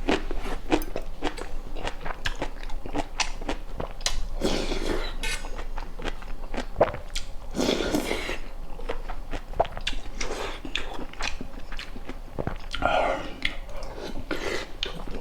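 A person chewing and biting food close to the microphone, with many small wet clicks and crunches and a few longer, louder noisy stretches.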